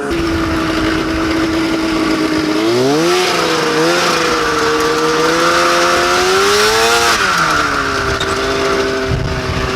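Go-kart's two-stroke snowmobile engine running steadily, then revving up about three seconds in, holding the higher speed for about four seconds and dropping back down.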